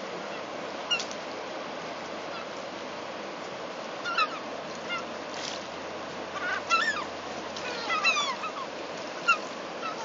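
Gulls calling: short, harsh cries, a few at first, then coming in quick clusters through the second half. A steady rush of flowing river water runs underneath.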